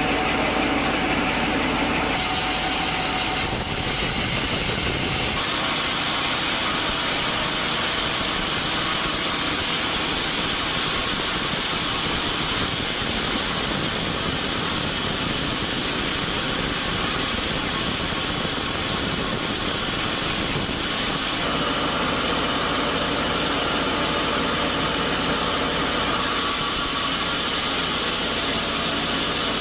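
Woodworking machinery running steadily, a loud constant mechanical noise with a high hiss, its character changing abruptly about 2, 5 and 21 seconds in.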